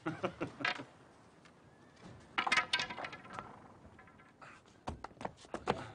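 Swords clashing in practice: sharp metal strikes and clinks with brief ringing, coming in several quick clusters.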